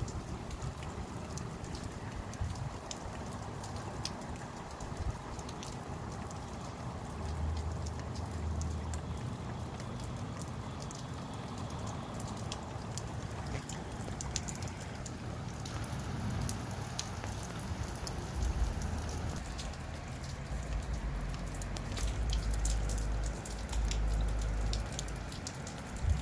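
A rain shower falling steadily, with many individual drops ticking close by. Gusts of wind rumble low twice, about a third of the way in and more strongly over the last several seconds.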